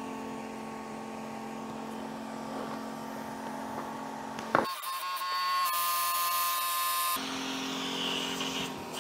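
Laser engraver's air-assist blower running with a steady electric motor hum. About halfway through there is a sharp click and the tone goes higher and thinner for a couple of seconds, then the steady hum returns.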